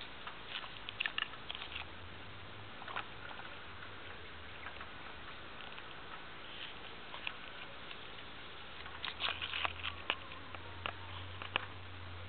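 Faint scattered clicks and rustles over a steady hiss, bunched about a second in and again near nine to ten seconds in: handling and leaf-rustling noise from a handheld camera moving through foliage.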